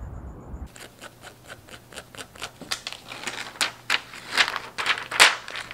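Crinkling and rustling of a laptop's protective packaging wrap as it is peeled off, a quick run of crackles and light taps that gets louder past the middle.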